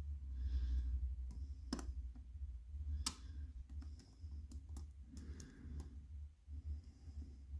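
Lock picking tools working in a challenge lock: scattered small clicks and ticks, with two sharper clicks about two and three seconds in, over a low steady rumble.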